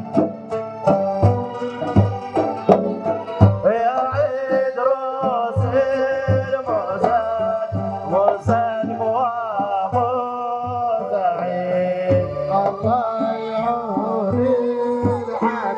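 Traditional Dhofari folk music: drums beating a steady rhythm, joined about four seconds in by a man singing a winding, ornamented melody.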